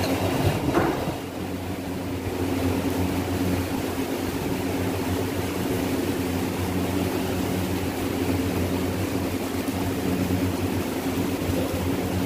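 Steady low mechanical drone with a constant hum, a motor or machine running without change.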